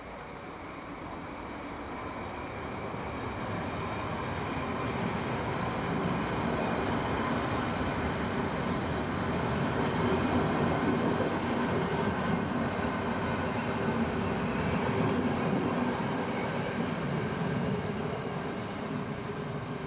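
Italian passenger train coaches rolling past close by, a steady rumble of wheels on rail that grows louder over the first ten seconds or so and then holds.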